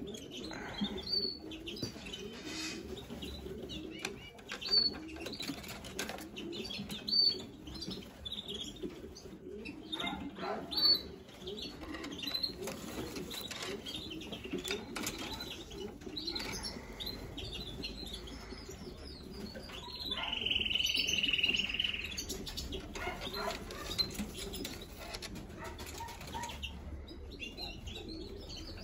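Pigeons in a loft: a few sharp wing flaps and short high chirps over a steady low cooing murmur. About two-thirds of the way through there is a held high note lasting about two seconds.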